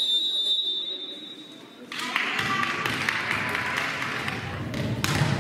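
Referee's whistle: one long, steady, high blast lasting about two seconds. It is followed by general noise of a sports hall, with a sharp knock near the end.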